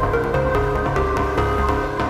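Background music with a pulsing low beat and a quick melody of short stepping notes.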